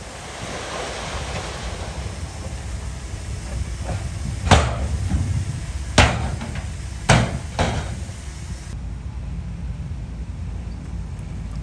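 Komatsu bulldozer running with a steady low engine rumble, broken in the middle by four loud clanks about a second apart.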